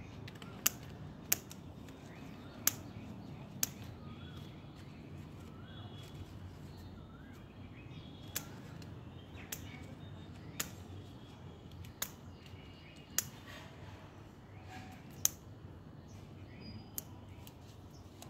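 Scissors snipping through the leaf stalks of a banyan bonsai during pruning: about eleven sharp snips at irregular intervals.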